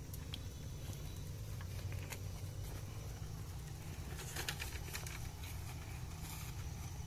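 Low, steady wind and handling rumble on a phone microphone, with scattered faint crunching and crackling from the rocky dirt trail, thickest about four to five seconds in.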